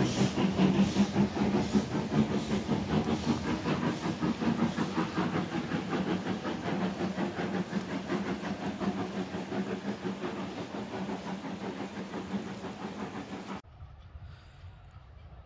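Steam locomotive working away with a steady beat of exhaust chuffs over hissing steam, fading as it pulls off. It cuts off suddenly about 13.5 seconds in, leaving only a faint background.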